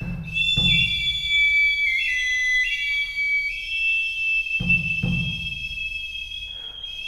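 Two high-pitched Andean duct flutes (flautas de pico) playing long, shrill held notes together, stepping from one pitch to the next. A large double-headed drum is struck twice at the start and twice again about two-thirds of the way through.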